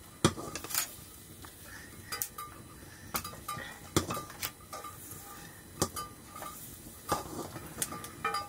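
A stirring utensil knocking and scraping against a metal cooking pot over a wood fire: irregular sharp clinks, several with a brief metallic ring.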